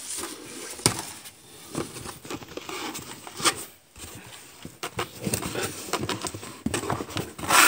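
Cardboard box being handled: flaps rustling and scraping, with scattered light taps and clicks, and a louder thump near the end.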